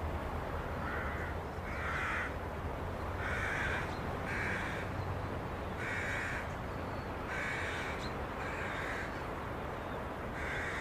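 Crows cawing repeatedly, about eight caws spaced a second or so apart, over a low steady rumble.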